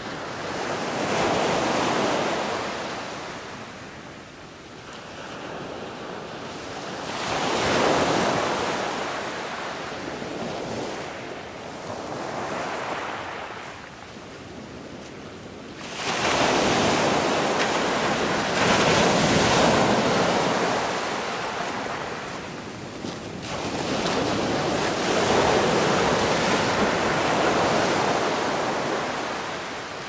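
A rushing noise that swells and fades in slow waves about every five or six seconds, turning suddenly louder and fuller about 16 seconds in.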